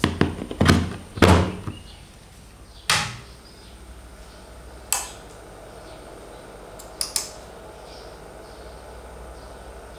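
A mains plug pushed into a power strip socket with a quick cluster of knocks and clicks, then single sharp clicks a few seconds later as the power amplifier is switched on, over a steady low hum.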